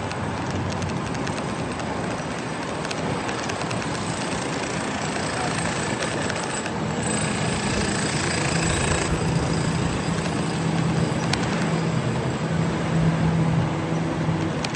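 Car on the road: steady engine and road noise, slowly growing louder.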